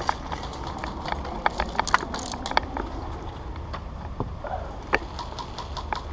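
Airsoft guns firing: scattered, irregular sharp pops and clicks over a steady low rumble.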